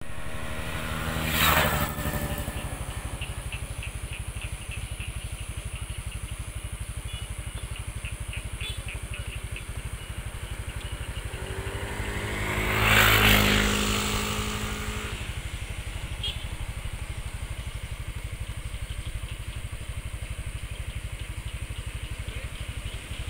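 Frog chorus in the rice fields, calling back and forth as a steady low, rapid pulsing, with fainter higher ticking calls between about three and nine seconds in. Two vehicles pass, one about a second and a half in and one around thirteen seconds in, each swelling and fading away.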